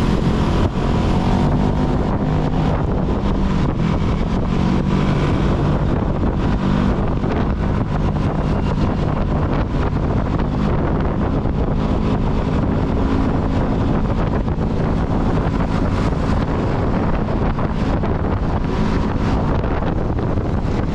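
Motorcycle engine running steadily on the move, a constant low hum, mixed with wind rushing over the action camera's microphone.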